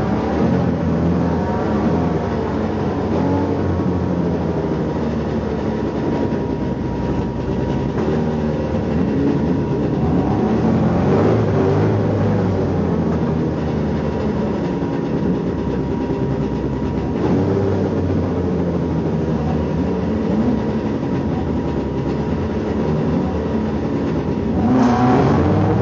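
Race car engine heard from inside the stripped cabin, revving up and down as the car accelerates and changes gear, with a louder, sharp noise near the end.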